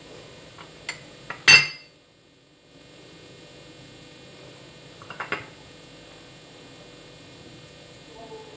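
Kitchen utensils and dishes clinking: a few light taps, a louder ringing clink about a second and a half in, and another short cluster of clicks around five seconds.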